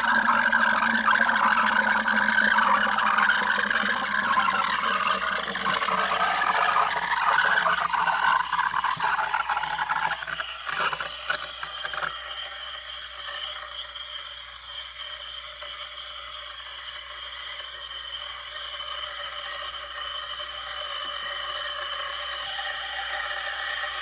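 Steam wand of a Sboly steam espresso machine frothing milk in a ceramic mug: a loud, rough hiss for about the first ten seconds, then a quieter, steadier, higher-pitched hiss once the milk has foamed up.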